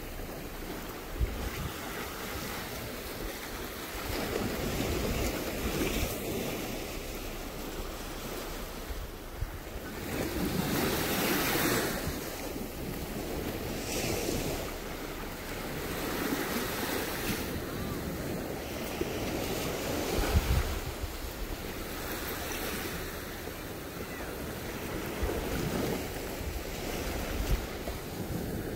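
Small surf washing on a sandy beach, swelling and fading every few seconds, with wind buffeting the microphone in a few low thumps.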